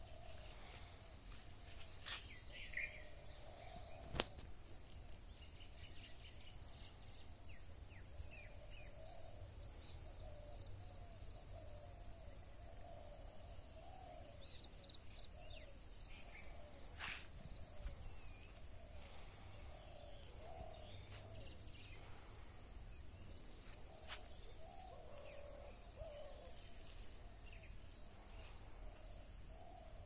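Faint rural outdoor ambience: birds call now and then over a steady high insect drone and a low rumble. A few sharp clicks, the loudest about four seconds in.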